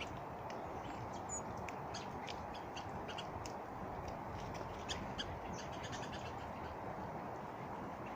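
Birds giving many short, scattered high chips over a steady background hiss.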